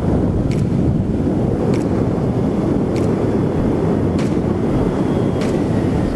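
Wind rushing over the camera microphone while a Yamaha NVX 155 scooter is ridden at speed through bends, its single-cylinder engine and road noise running steadily beneath. A faint click comes about every second and a quarter.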